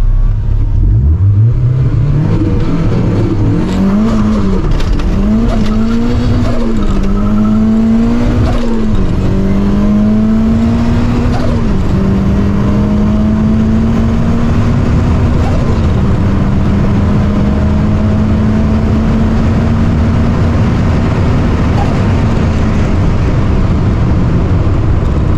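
Mazda MX-5 four-cylinder engine heard from inside the cabin during a full-throttle drag run. The revs climb and drop at each gear change, wavering over the first few seconds while the car struggles for traction off the line, then hold a long steady pull in fifth gear before easing off near the end.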